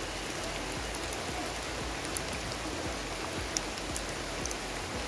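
Steady rain falling, an even hiss with scattered sharp ticks of drops striking close by.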